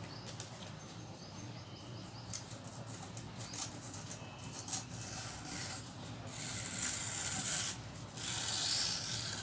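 A square sheet of paper being handled and worked along a diagonal fold: faint crackles and rubbing at first, then two longer, louder rubbing strokes in the second half.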